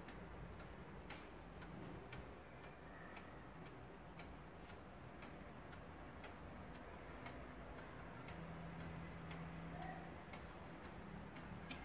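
Antique New Haven pendulum wall clock ticking steadily, about two ticks a second.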